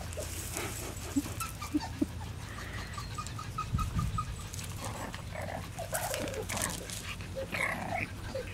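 French bulldog puppies giving short, small whimpers, with scattered light clicks and scuffs.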